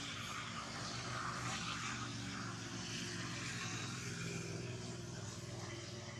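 Steady drone of a distant engine, a low even hum over a background hiss.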